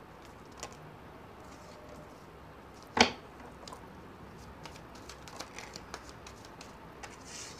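Tarot cards being handled and dealt: small scattered clicks and rustles from the deck, with one sharp card snap on the table about three seconds in as a card is laid down.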